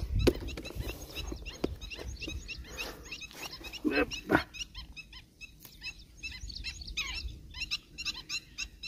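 Birds calling over and over in quick, short chirps, with wind rumbling on the microphone; two louder, lower calls stand out about four seconds in.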